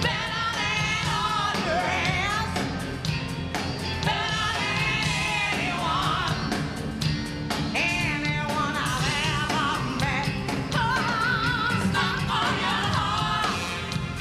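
Live rock-and-roll band with a female lead singer belting with wide vibrato, backing singers and drums.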